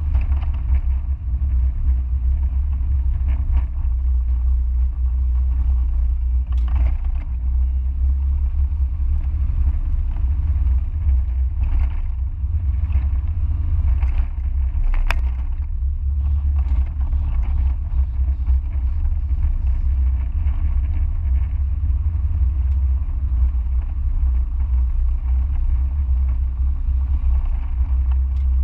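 Mazda MX-5 driving, heard onboard: a steady low engine and road rumble with no big changes in pitch, broken by a few short knocks, the sharpest about halfway through.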